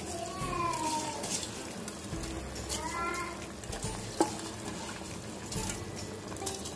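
Tomato-masala water boiling hard in an open pressure cooker pot as soaked rice is dropped in, a steady bubbling sizzle with many small pops. A sharp click sounds about four seconds in, and two short wavering tones come and go near the start and about three seconds in.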